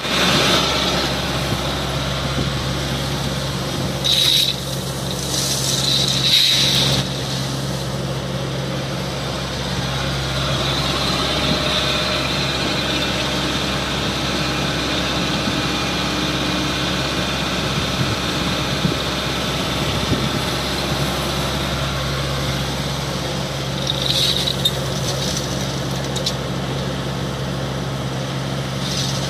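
Kobelco SK140HDLC crawler excavator's diesel engine running steadily under working load, with a few short hissing bursts about 4, 6 and 24 seconds in.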